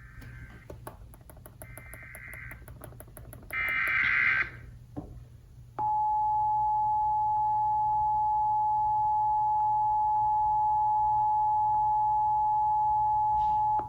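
Emergency Alert System header: three short bursts of warbling data tones, each about a second long, then the steady two-tone attention signal held for about eight seconds. Together they announce a test of the emergency alert system.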